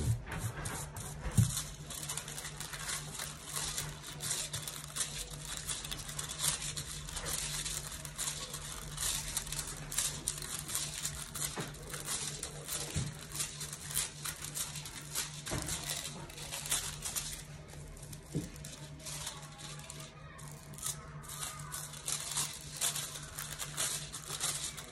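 A sheet of gold transfer foil crinkling and rustling as hands press and rub it onto dried transfer glue on velvet fabric and peel it back, in many small crackles. A steady low hum runs underneath.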